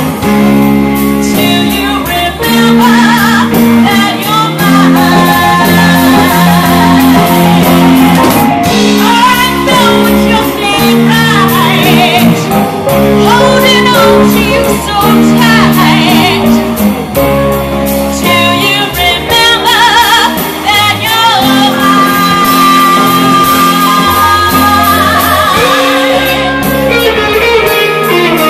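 Live band playing a blues-soul ballad: a woman sings lead, holding notes with vibrato, over electric guitar, keyboard, bass and drums.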